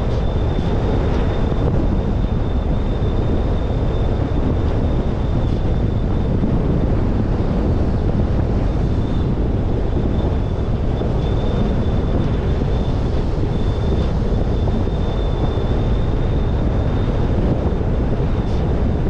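Wind rushing over a GoPro HERO10 mounted on the roof of a moving car, with road noise underneath. The rush is loud, steady and heaviest in the low end. A thin, steady high whine runs through it.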